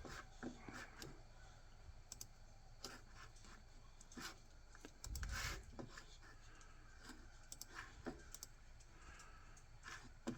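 Faint, scattered clicks from a laptop as someone works through software menus, with a dull low bump about five seconds in.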